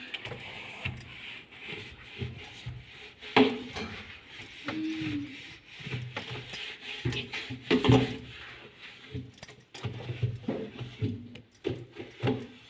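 Irregular clinks, knocks and rattles of fridge parts and containers being handled during fridge cleaning, with two louder knocks about three and eight seconds in.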